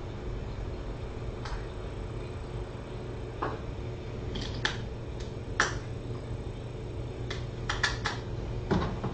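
About ten short, sharp clicks and taps, scattered from a couple of seconds in and bunched toward the end, over a steady low hum.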